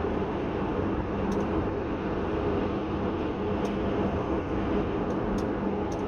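Steady road and tyre noise of a car cruising at motorway speed, with a low, even hum from the engine and drivetrain. A few faint ticks come through.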